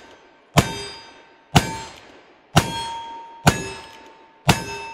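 Five shots from Pietta Great Western single-action revolvers in .38 Special loaded with black powder, fired about a second apart. Each shot is followed by the brief ring of a steel target being hit.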